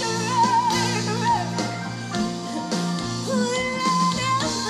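Live band playing a pop-rock ballad on electric guitars, keyboards and bass, with a long wavering held melody note at the start and another held note that steps up in pitch near the end.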